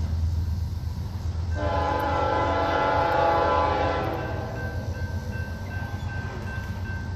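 A locomotive's chord air horn sounds one long blast of a few seconds, starting about a second and a half in. Soon after it ends, the crossing's electronic bell starts ringing with a steady repeated ding as the warning signals activate.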